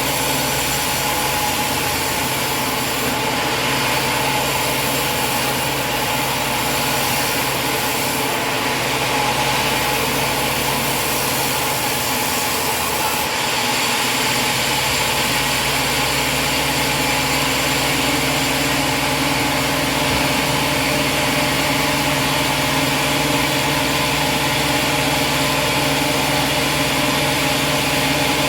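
Portable sawmill's engine running steadily at an even speed.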